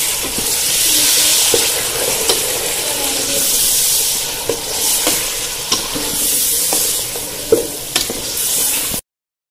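Tomato-and-spice masala frying and sizzling in hot oil in a metal pot as a steel ladle stirs it. The sizzle swells and eases with the stirring, and the ladle clicks against the pot now and then. The sound cuts off sharply about nine seconds in.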